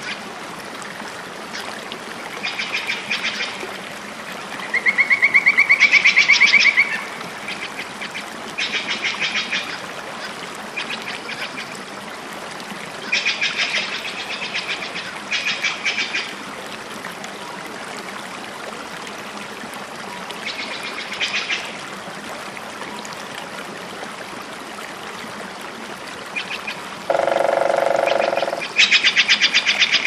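Rainforest soundscape of animal calls: short, rapidly pulsed trills repeating every few seconds over a steady hiss, with a loud trill about five seconds in and a lower, deeper call near the end.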